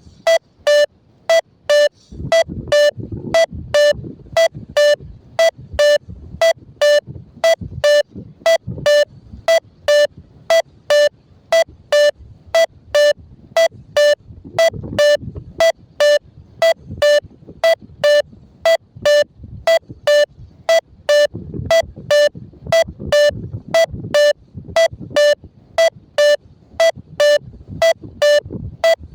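XCTrack variometer beeping steadily, about two short beeps a second at one pitch, the climb tone that signals rising air.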